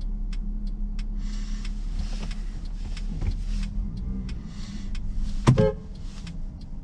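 Inside a Mercedes C230 in slow city traffic: a steady low engine hum with passing bursts of road and traffic hiss, and faint regular ticks at first. A single sharp click with a short ring sounds about five and a half seconds in.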